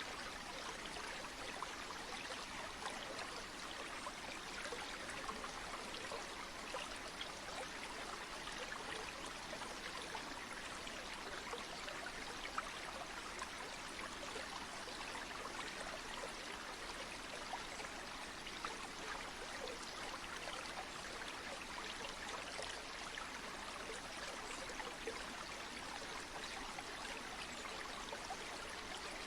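Flowing stream: a steady, even rush of running water with small, quick trickles and splashes flickering through it.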